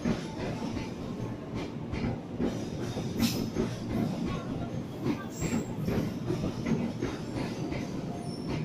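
Passenger train coaches rolling past close by: a steady rumble of steel wheels on rail with frequent clicks as the wheels cross rail joints, and a brief high-pitched screech about three seconds in.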